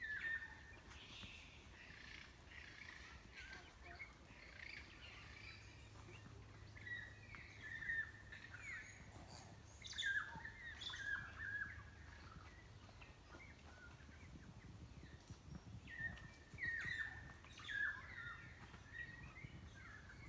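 Forest birds singing: short chirps and whistles that come in spells, with a few louder notes near the middle and again near the end.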